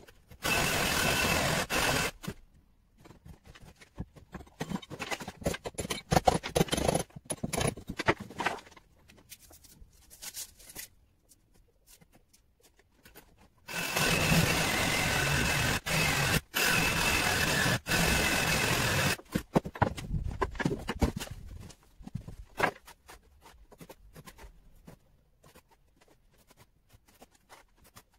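Power drill boring into a concrete-block wall with a steady whine: a short run of about two seconds near the start and a longer one of about five seconds midway. Scattered knocks and scrapes come from work on the blocks between the runs.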